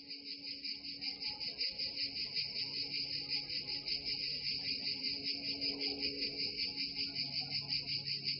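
Crickets chirping steadily in a regular, pulsing rhythm.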